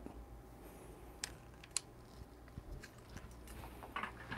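A few faint, sharp clicks and taps over quiet room tone, two of them a half second apart about a second in and a small cluster of soft handling sounds near the end.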